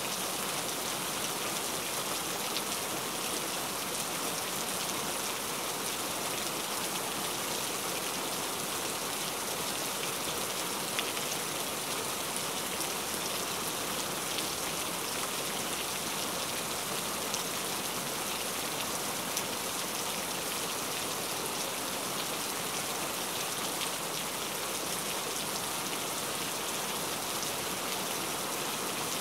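Cauliflower kababs shallow-frying in hot oil: a steady sizzle with small scattered crackles.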